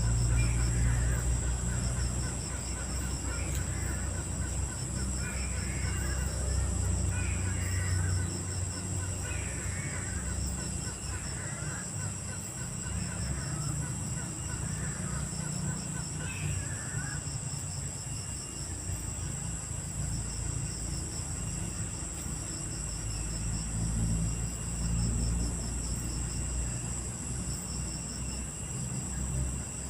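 Night insects shrilling steadily, with a bird chattering in repeated short calls through the first half. A low rumble runs underneath.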